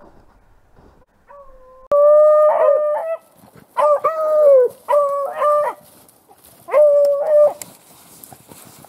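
Beagle baying on a rabbit's scent trail: loud, drawn-out bays in four quick groups, starting about two seconds in.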